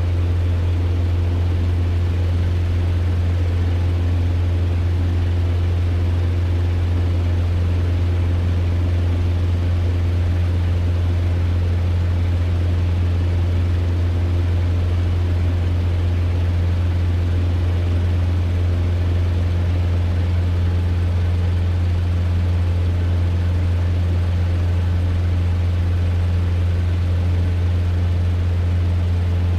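Cessna 150's four-cylinder Continental O-200 engine and propeller droning steadily in flight, heard from inside the cabin. There is a deep, even hum with no change in pitch or power.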